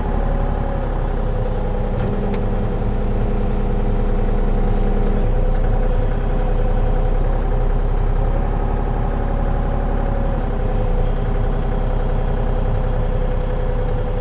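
Kubota mini excavator's diesel engine running steadily, with an extra steady tone under it for about the first five seconds.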